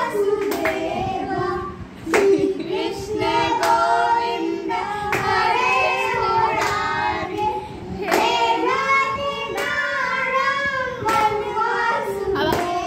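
A young boy singing into a corded handheld microphone, in long held notes with short breaks for breath.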